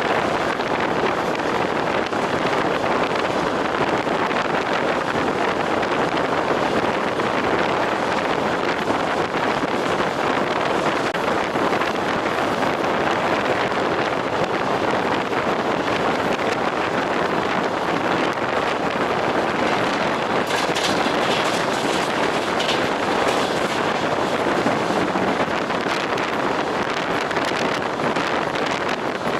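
Moving passenger train heard from inside the carriage: the steady rolling noise of wheels on rails, with a short run of sharper clatters about two-thirds of the way through.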